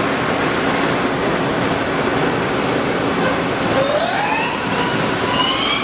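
Mazak Quick Turn QT40 CNC lathe running, with a steady mechanical hum; a little under four seconds in, a whine begins to rise in pitch as the spindle speeds up, levelling off at the end.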